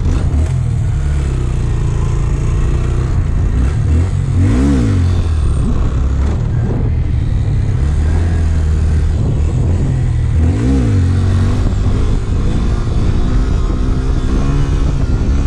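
Honda Grom's small single-cylinder engine running hard under throttle while being ridden, its pitch dropping sharply and climbing straight back twice, about five and eleven seconds in.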